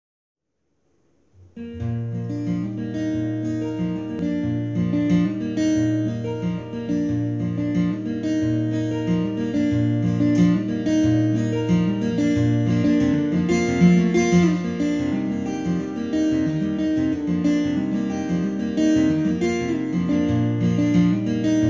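Two acoustic guitars playing an instrumental intro with strummed chords over sustained bass notes, starting about a second and a half in after a short silence.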